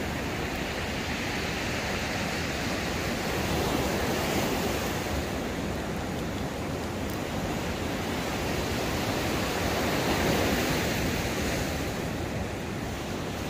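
Sea waves washing onto a pebbly shore, a steady rush that swells louder about four seconds in and again about ten seconds in.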